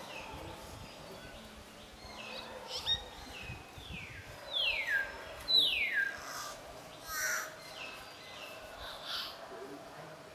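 Southern hill myna calling: loud whistles that slide steeply down in pitch, the two loudest about a second apart near the middle, mixed with shorter calls.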